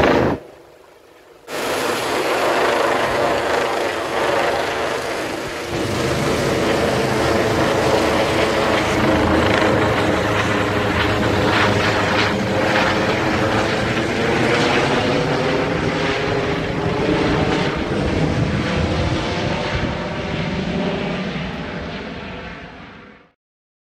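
Trauma helicopter flying overhead: the steady drone of its rotor and turbine engines. The sound drops away briefly just after the start, fades a little toward the end, then cuts off suddenly.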